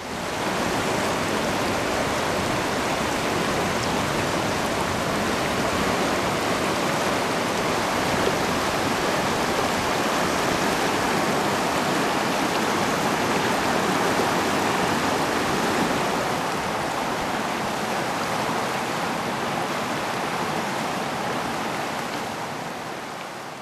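River rapids rushing over rocks: a loud, steady, dense rush of white water that fades out near the end.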